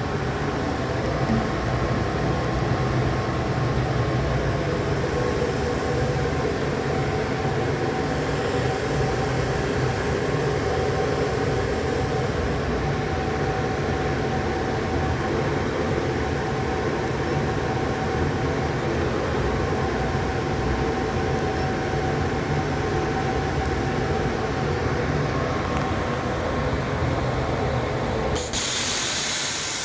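CNC cutting machine running, a steady mechanical noise with a low rumble and a faint whine. Near the end a loud hiss starts suddenly.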